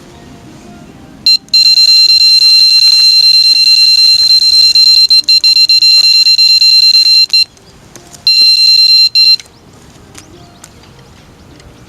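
Loud, high-pitched electronic beeper tone held for about six seconds, breaking off, then sounding again briefly about a second later.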